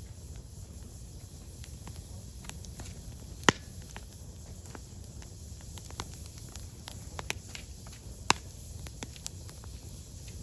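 Firewood burning, crackling with scattered sharp snaps over a low steady rumble; two much louder pops, about a third of the way in and again later on.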